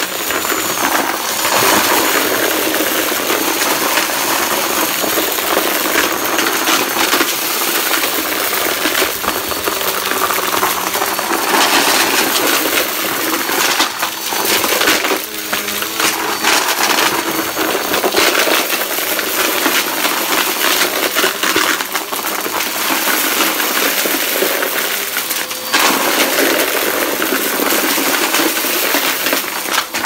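Upright vacuum cleaner running as it is pushed over cardboard, sucking up small hard debris, which clatters and clinks up through the machine.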